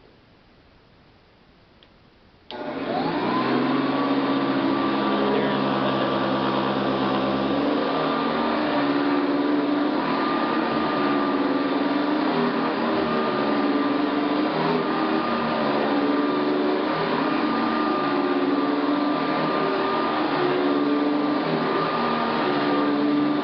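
Hoover Decade 80 upright vacuum cleaner switched on about two and a half seconds in: its motor spins up with a rising whine, then runs steadily.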